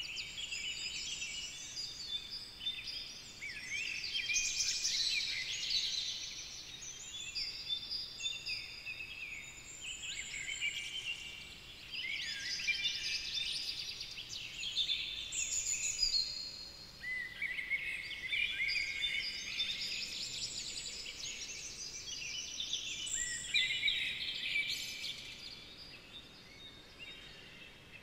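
Many birds singing together in a dense chorus of overlapping high chirps and whistles.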